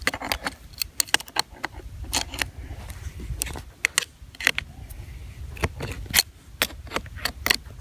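Pliers' metal jaws clicking and scraping on a brass air-hose fitting as it is turned and tightened onto the hose end: a rapid, irregular run of sharp metallic clicks.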